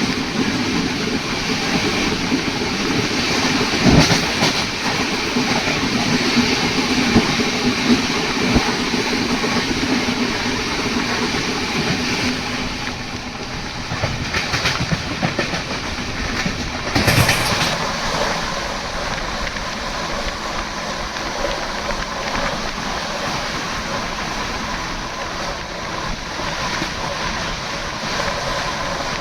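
Passenger train, the 12840 Howrah Mail, running along the track with a steady rumble and the wheels clattering over the rails. There are two sharper knocks, one about four seconds in and a louder one near the middle.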